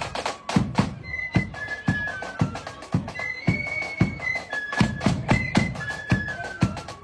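Marching flute band playing a tune: flutes carry the melody in held high notes over drum beats falling about twice a second.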